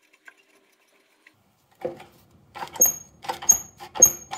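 Metallic clicking and knocking as a belt sander's tracking adjustment bolt and spring are worked by hand. The knocks start about two seconds in and come at roughly two a second, each with a brief high metallic ping.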